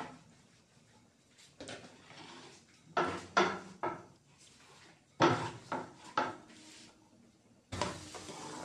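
Kitchen utensils clattering: a wooden rolling pin set down and a frying pan handled on a gas stove, as a string of sharp knocks. Near the end a steady sizzle starts as the rolled paratha goes into the hot oiled pan.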